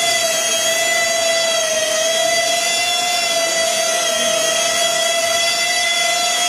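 Electric ducted fans of a radio-controlled F-35 STOVL model jet running at hover power: a loud, steady, high-pitched whine over a rush of air, its pitch wavering slightly.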